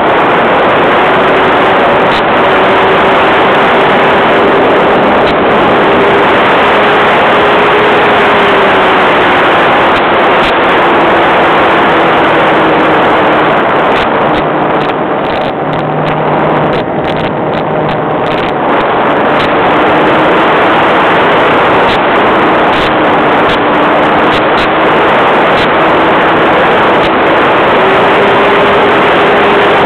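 Model airplane's engine and propeller heard from a camera mounted on the plane in flight: a loud, steady drone buried in rushing airflow noise, its pitch drifting slowly up and down with the throttle.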